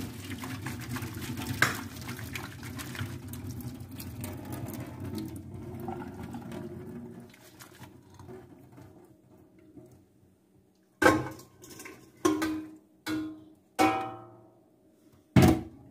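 Drained penne being shuffled and tipped about in a stainless steel pot, a dense clattering rustle for several seconds. Then, after a pause, about five sharp ringing metal clanks of steel pots and a lid on the gas hob.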